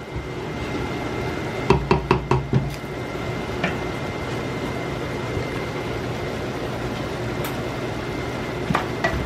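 Steady cooking noise from a pot or pan on the stove, with a low hum under it. A quick cluster of knocks of a utensil against the cookware comes about two seconds in, with a few single knocks later.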